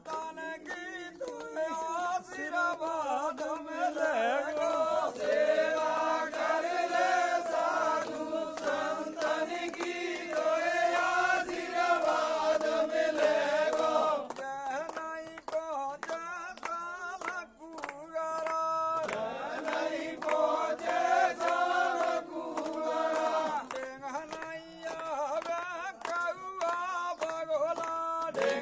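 A group of men singing a devotional chant to the guru together, clapping their hands along with it.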